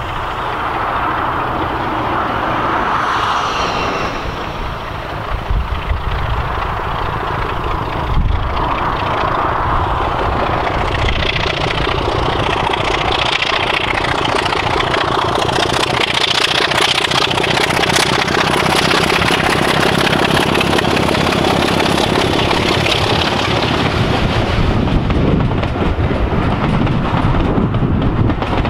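Diesel locomotive hauling a train of coaches, its engine getting louder as it approaches. Then the wheels clatter steadily over the rail joints as the train passes close by.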